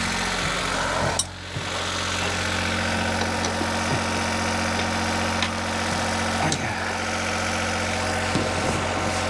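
A steady engine-like hum throughout, with a few light metallic clicks and knocks from parts being handled.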